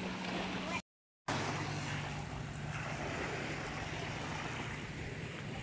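Small waves lapping on a sandy shore, a steady wash of water noise with a low steady hum underneath. The sound drops out completely for about half a second, about a second in.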